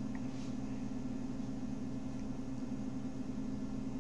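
Steady low hum with faint hiss: room tone.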